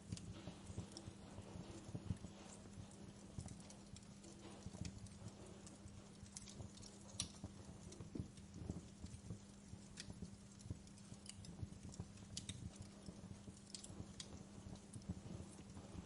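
Wood fire in a fireplace crackling, with irregular sharp pops and snaps over a low rumble and a steady low hum.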